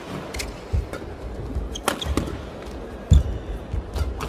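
Badminton rally: sharp racket strikes on the shuttlecock about every second and a half, with players' shoes squeaking and their feet thudding on the court; the loudest sound is a heavy thud of a footfall about three seconds in.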